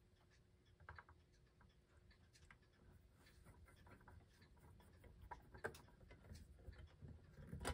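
Faint, scattered small clicks and scrapes of a screwdriver and fingertips working a small screw out of a clock's back cover, with a slightly sharper click near the end.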